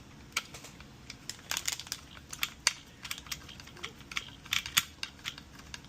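Quick, irregular light clicks and taps, several a second, from handling a treadmill control board and test tools on the bench.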